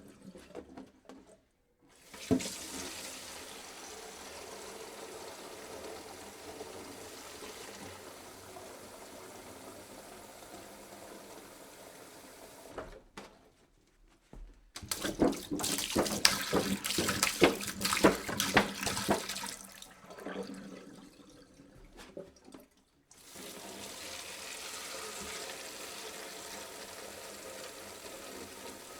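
Water poured into a jug in several separate pours with brief pauses between them. The pour near the middle is louder and splashier, while the others are a steady, softer stream.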